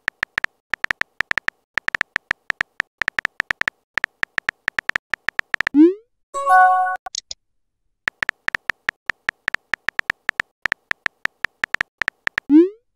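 Texting-app sound effects: rapid keyboard tap clicks as a message is typed. About halfway through, a short rising swoop and a brief chime mark the message being sent. The tap clicks then start again, and another rising swoop comes near the end.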